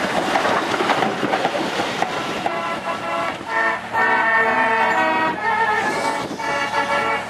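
Railway coaches rolling past with a steady rushing rumble of wheels on track. About two and a half seconds in, this gives way to music of held notes changing pitch every second or so.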